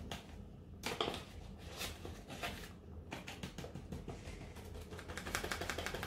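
Paper packet of cornstarch rustling and crinkling as the powder is poured from it into an enamel bowl: a run of small quick crackles that grows denser near the end.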